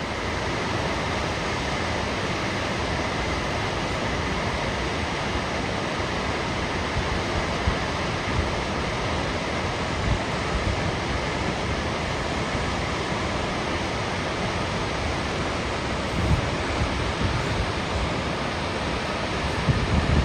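A McCloud River waterfall with a steady rush of falling water. A few low wind buffets hit the microphone near the end.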